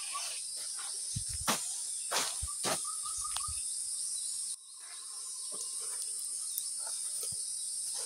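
Forest insects buzzing steadily at high pitch, with a bird giving a quick run of repeated whistled notes a few seconds in. Scattered crunches and rustles of footsteps in leaf litter come through on the climb.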